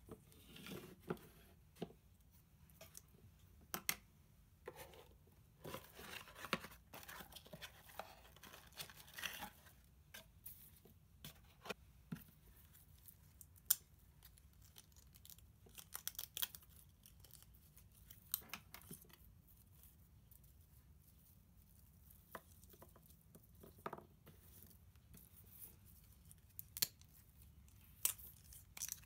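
Faint crinkling and rustling of a plastic mesh bag of flower bulbs being opened and handled, with scattered small clicks and taps as the bulbs are tipped out onto paper. A denser stretch of rustling comes about six seconds in.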